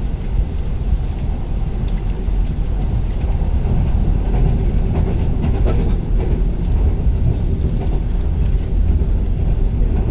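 Passenger train running on the rails: a steady low rumble with a few faint clicks.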